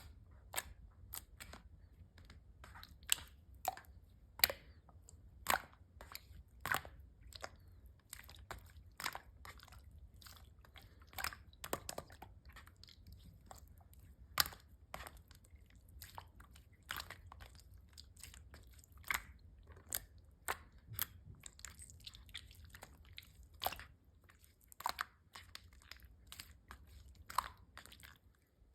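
Mixed slime being squeezed, poked and stretched by hand: irregular sharp crackles and clicks, a couple a second, some louder than others.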